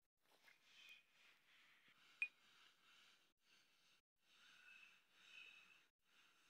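Near silence: faint hiss that drops out briefly several times, with one sharp click about two seconds in.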